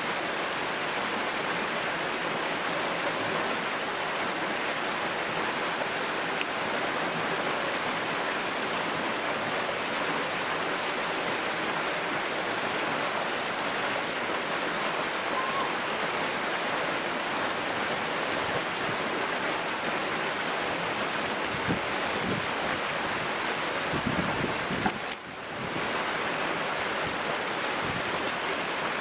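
Waterfall pouring into a rocky pool: a steady rush of falling water, with a few low bumps and a brief drop in level near the end.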